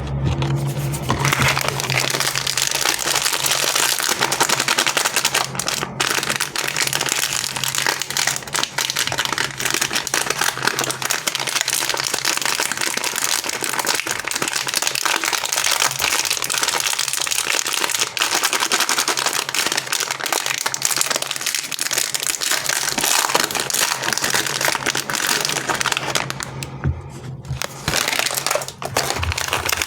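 Sweet and chocolate wrappers crinkling steadily as they are handled and opened, with a short lull near the end.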